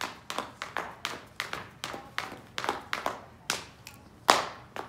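Irregular sharp hand claps, about three to four a second, with one louder clap a little after four seconds in.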